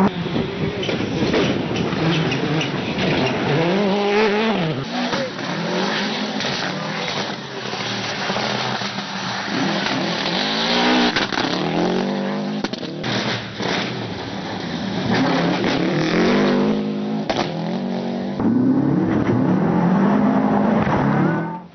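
Rally cars passing one after another on a gravel stage, their engines revving high and rising in pitch through repeated gear changes, with gravel spraying from the tyres.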